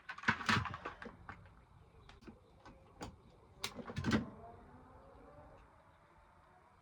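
Cable cutters snipping at the edge of an electrical cable's sheath: a few separate sharp clicks spread over about three seconds, then quiet handling.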